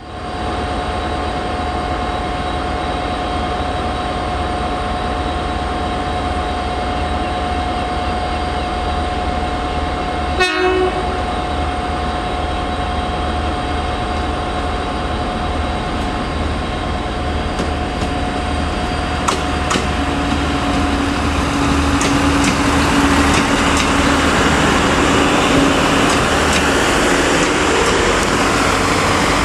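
Irish Rail 29000 class diesel multiple unit's underfloor engines running steadily at the platform, with a short sharp sound about ten seconds in. About two-thirds of the way through a new engine note comes in and the sound grows louder as the train pulls away and passes close by.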